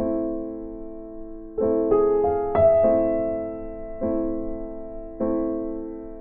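Background piano music: slow chords struck every second or so and left to fade, with a short run of quicker notes about two seconds in.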